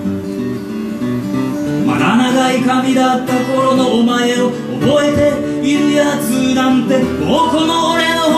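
A man singing a slow song while strumming an acoustic guitar; after a short stretch of guitar alone, the voice comes back in about two seconds in.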